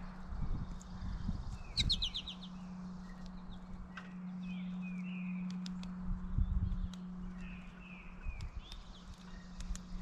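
Small birds chirping repeatedly outdoors, with a quick run of high notes about two seconds in and scattered sharp ticks. A steady low hum sounds through most of the middle, and a few low thumps come near the start and about six seconds in.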